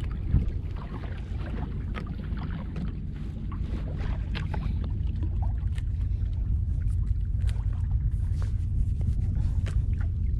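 Steady low rumble of wind and water around a small wooden outrigger fishing boat at sea, with scattered small clicks and splashes throughout.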